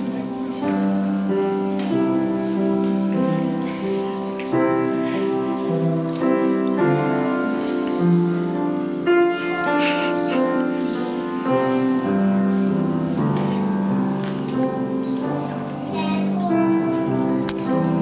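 Piano music: a continuous run of melody notes over chords.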